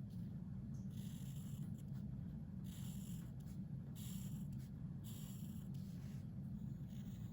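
Drawing strokes on paper: about four short scratchy strokes, roughly a second apart, over a steady low hum.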